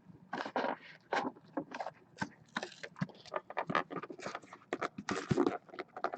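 Sealed cardboard box of trading cards being opened and its contents handled: a quick, irregular run of scrapes, crinkles and light clicks of cardboard and wrapping.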